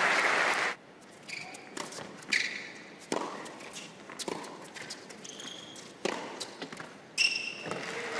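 Applause dies away under a second in. Then comes a tennis rally on an indoor hard court: a tennis ball struck by rackets and bouncing, several sharp knocks about a second apart, with short shoe squeaks on the court between them.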